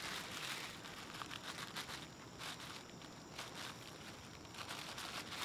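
Scissors cutting through a thin plastic shopping bag: quiet crinkling and rustling of the plastic with small snips and crackles, busier in the first couple of seconds and sparser after.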